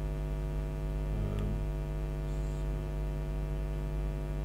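Steady electrical mains hum in the recording, with a faint short click about a second and a half in.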